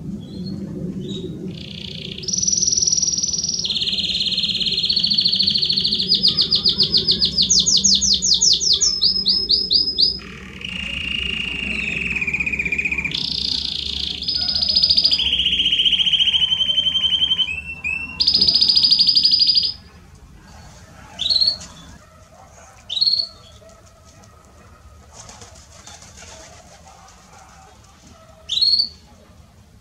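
Belgian canary singing a long, loud song of rapid trills, each held at one pitch for a second or two before jumping to another, stopping about twenty seconds in. Three short rising chirps follow.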